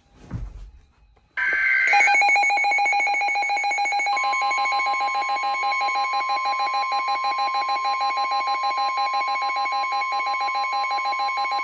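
Emergency Alert System alert tones for a severe thunderstorm warning: after a brief burst of tones about a second and a half in, a loud, rapidly pulsing electronic alarm sounds, joined about four seconds in by a steady high tone.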